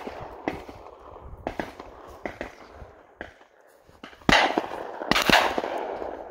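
Two close shotgun shots about a second apart, each trailing off in a long echo, after several fainter sharp cracks.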